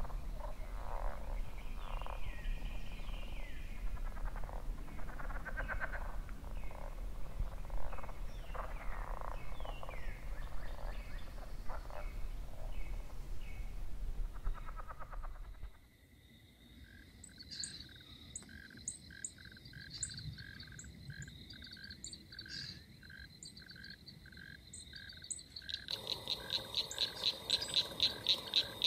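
A night chorus of frogs calling in dense overlapping pulses. About halfway through it cuts to quieter steady chirping of crickets with short high chirps over it. Near the end a loud, fast chirping of about four pulses a second starts.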